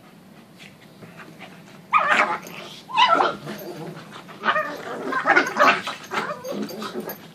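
Pug making odd, gremlin-like vocal noises while playing: a couple of short yips and whimpers, then a longer run of growly yapping sounds, after a quiet start.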